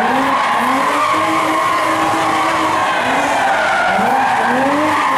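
Rally car spinning donuts on tarmac: the engine revs up and down in repeated sweeps, held at high revs in between, over the hiss of skidding tyres.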